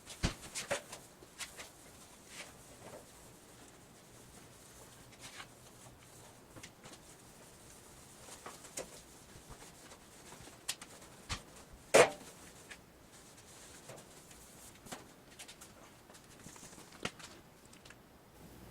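Lint-free cloth wiping a plastic bumper cover down with alcohol: faint scattered rubbing and light handling clicks, with one sharper knock about twelve seconds in.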